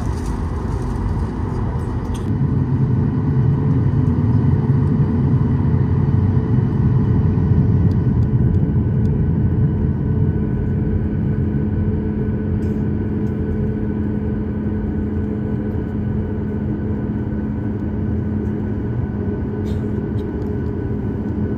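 Cabin noise inside a Boeing 737 MAX 8 on the ground: the engines running at idle with a steady hum and several held whining tones over a low rumble, swelling for a few seconds from about two seconds in as the jet moves, then steady.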